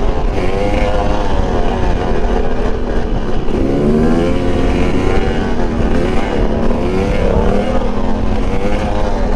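Two-stroke motorcycle on supermoto wheels being ridden hard, its engine revving up and falling back over and over, the pitch rising and dropping every second or two.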